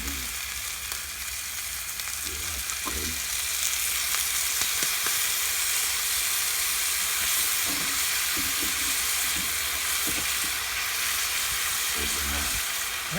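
Steak sizzling as it cooks over a fire-pit stand: a steady frying hiss that grows a little louder a few seconds in and then holds.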